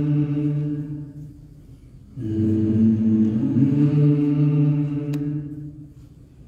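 Liturgical chant sung in long held phrases. One phrase dies away about a second in, and a new phrase begins about two seconds in and fades out near the end.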